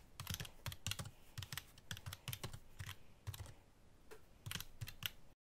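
Computer keyboard typing: a run of irregular keystroke clicks, some in quick clusters, that stops abruptly near the end.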